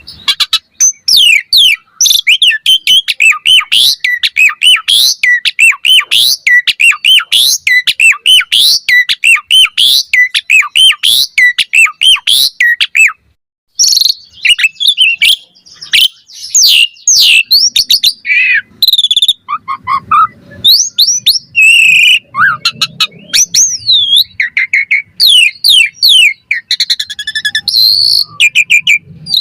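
Asian pied starling (jalak suren) singing energetically: a fast run of sharp whistled notes that bend up and down. About halfway through there is a short break, and then a more varied mix of whistles and trills, with some lower notes, follows.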